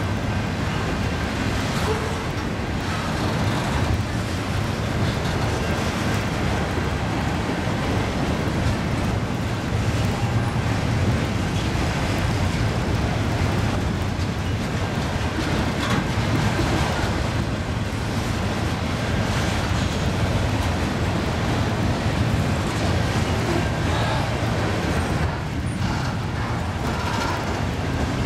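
BNSF freight train cars rolling past, a steady rumble and clatter of steel wheels on the rails.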